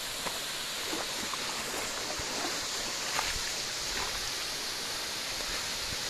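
Steady rush of a monsoon-fed waterfall and the rocky stream flowing from it, an even high hiss of falling and running water.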